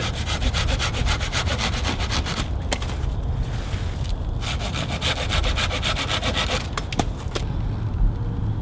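Hand saw cutting through a wooden branch: two spells of quick, even rasping strokes with a pause between, then a couple of sharp clicks about seven seconds in.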